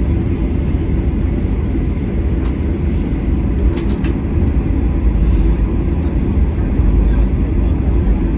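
Cabin noise of a Boeing 737-800 taxiing: a steady low rumble from the CFM56 jet engines at taxi thrust and the wheels rolling over the taxiway, heard from inside the cabin.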